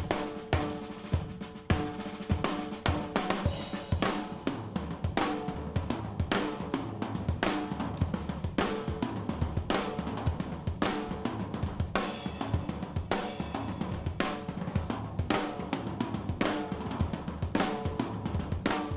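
Acoustic drum kit playing a steady groove of kick, snare and hi-hat, with a cymbal crash about twelve seconds in; the kit is recorded and mixed through analog gear only, with no plugins.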